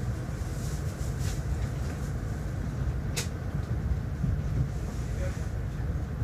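Steady low rumble of a CRH high-speed train rolling slowly over station tracks as it arrives, heard from inside the carriage, with a sharp click about three seconds in.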